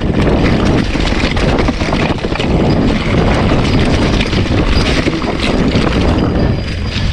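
Wind buffeting the microphone: a loud, uneven rumbling rush that never lets up.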